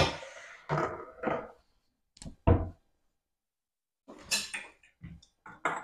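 Kitchen bowls and utensils being handled and set down on a counter: a sharp knock at the start, then a string of short clinks and dull thuds with pauses between them.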